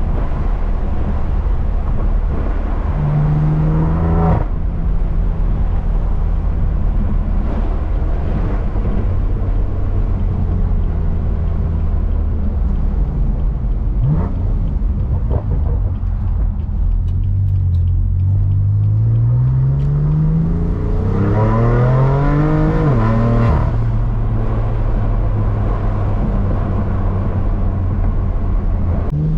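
BMW M3 CS twin-turbo inline-six through an AWE SwitchPath exhaust under way: a steady drone at cruise, a short rise in revs a few seconds in, then a longer pull with revs climbing about two-thirds of the way through that ends abruptly as the revs drop, settling back to a steady drone.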